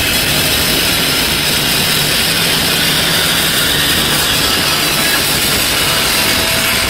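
Live garage/grunge rock band playing at full volume: a dense, steady wall of heavily distorted electric guitar noise.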